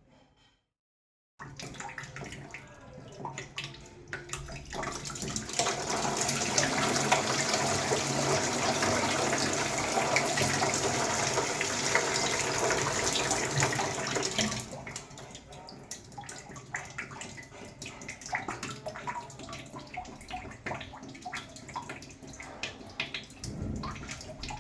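Shower water running: a steady, full spray for about eight seconds, then dropping to lighter splashing and dripping.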